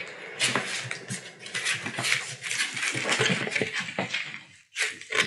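Collie puppies' claws clicking and skittering on a hard floor as they scramble around playing: a busy patter of quick light taps that briefly falls quiet near the end.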